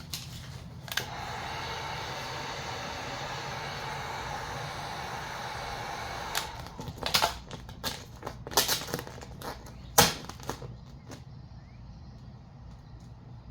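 A steady whirring blow for about five seconds that cuts off suddenly, then a run of sharp crackles and taps from handling the vinyl wrap film, the loudest about ten seconds in.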